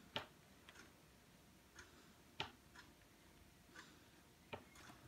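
Metal teaspoon clinking against an enamelled steel roasting pan while spreading béchamel: three sharp clicks about two seconds apart, with a few fainter taps between.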